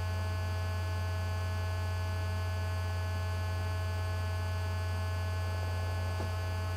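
Steady electrical mains hum, low and unchanging, with a thin layer of faint steady higher tones over it.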